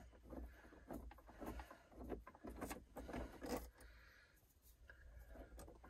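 Faint metallic clicks and light rattles of a battery terminal's nut and cable lugs being loosened and lifted off by hand. There are a dozen or so small taps through the first few seconds, then fewer and quieter.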